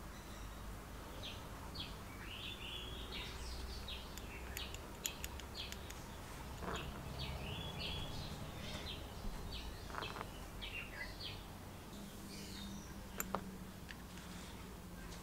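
Small birds chirping over and over in the background, with a few light clicks as small brass soldering-iron parts are handled and threaded together, the sharpest about a third of the way in and near the end.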